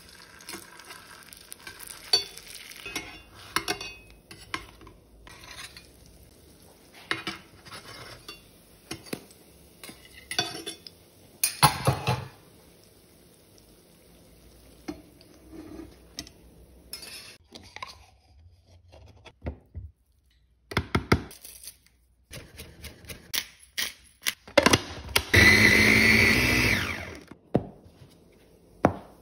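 Kitchen cooking sounds: a zucchini falafel patty frying in olive oil in a stainless steel pan, with scattered clinks and knocks of metal utensils against the pans. Near the end, a louder rushing noise lasts about two seconds.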